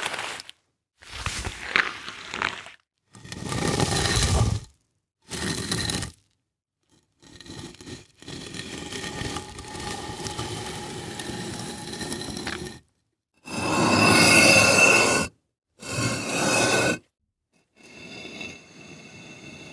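A run of separate impact sound effects of hits, cracks and breaking, each a second or two long with dead silence between them, and one steadier stretch of about five seconds in the middle.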